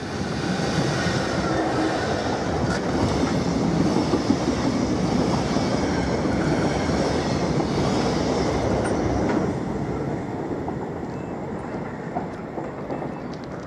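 Class 66 diesel freight locomotive passing at speed, followed by its train of engineering wagons clattering over the rails. The sound stays loud for about nine seconds, then dies down as the last wagons go by, and cuts off suddenly at the end.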